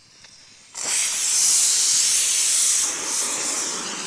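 Stovetop pressure cooker venting steam through its whistle vent in a loud, steady hiss that starts abruptly about a second in and eases slightly near the end. It is letting out its remaining pressure after cooking.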